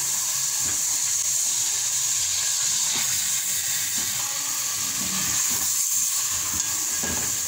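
Beef pieces sizzling as they fry in oil and spice paste in an aluminium pot, with a steady hiss and occasional scrapes and knocks of a metal spoon stirring against the pot.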